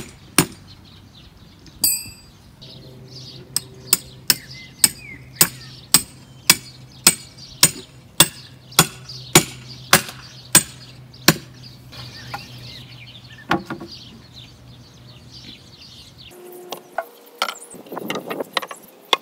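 Hammer driving nails into a wooden pole frame: a ringing metallic clink about two seconds in, then steady blows about two a second for about eight seconds, and a few scattered blows near the end.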